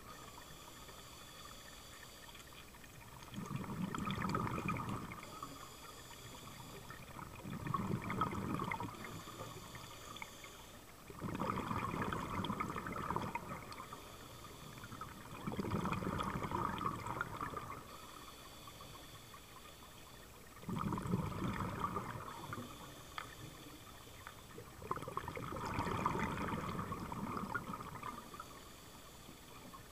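Scuba diver breathing through a regulator underwater, slow and regular. Each breath is a faint hissing inhale followed by a louder rumble of exhaled bubbles lasting about two seconds, six exhalations in all.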